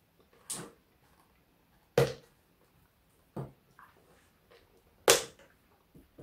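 Four short, sharp cracks and clicks, the loudest about two and five seconds in, from pieces of a thin chocolate Easter egg being broken off and handled in its clear plastic tray.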